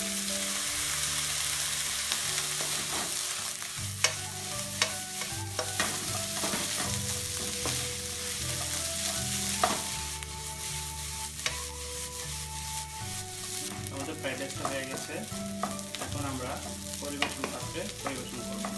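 Fried rice with egg and onion sizzling in a non-stick frying pan as it is stirred and tossed with a wooden spatula, with scattered sharp clicks of the spatula knocking against the pan.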